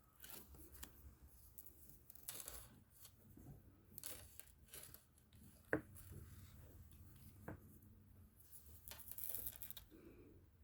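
Faint scratchy strokes of a colouring tool rubbed back and forth on paper, with a sharp click about six seconds in and a smaller one a little later.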